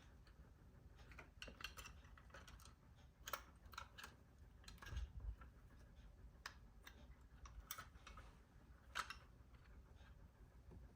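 Faint, irregular clicks and taps of small hard parts being handled, with a few sharper clicks standing out.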